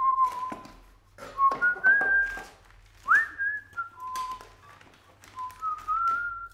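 A man whistling a tune in a few short phrases, some notes sliding up into held tones, with light clicks and knocks of kitchenware as a steel pot is set on the stove and a drawer opened.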